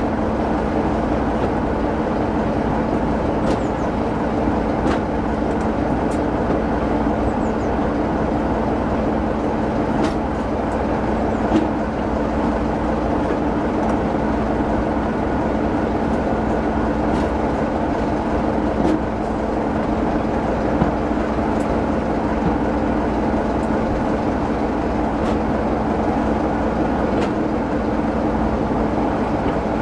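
Diesel locomotive running steadily under power, heard from the train it is hauling: an even engine drone over the rumble of the carriage on the rails, with occasional sharp clicks.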